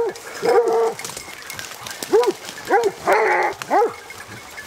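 Hunting scent hounds baying on the trail of a wild boar: about six short, rising-and-falling bays at irregular intervals, two of them held a little longer.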